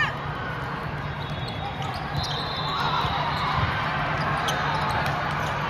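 Volleyballs bouncing on an indoor gym floor, short scattered knocks over the steady murmur of a large hall with distant voices.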